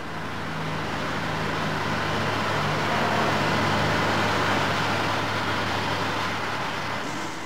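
Wheel loader's diesel engine running as the machine drives closer, growing louder toward the middle and easing off a little near the end.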